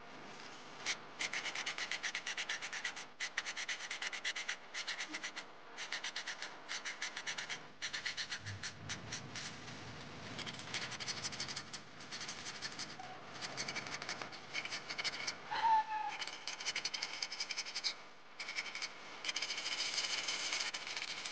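Coarse sandpaper rubbed by hand over a metal plumb bob in quick back-and-forth strokes, a dry scraping that stops briefly now and then as the grip changes, sanding the corroded surface bright for restoration. A short squeak about three-quarters of the way through.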